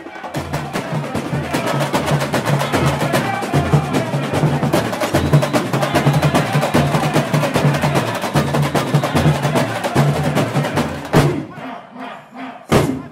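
Samba percussion music: a fast, dense drum rhythm over steady bass-drum pulses. It drops away about eleven seconds in, followed by a couple of sharp single knocks near the end.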